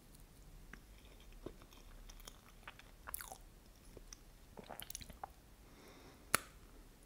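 Close-miked mouth sounds of eating New York cheesecake with caramel sauce: soft chewing with scattered small wet clicks and smacks, and one sharper click about six seconds in.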